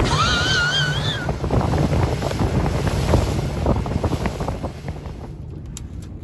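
Wind buffeting the microphone over choppy sea, with waves and a low rumble underneath. A wavering high whistle sounds for about the first second. The noise drops away near the end.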